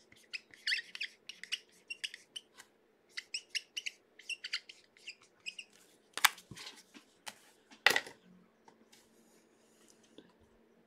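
Trading cards being handled: a run of faint, quick card-stock clicks and scrapes as cards are slid and picked off a stack, with two sharper snaps about six and eight seconds in.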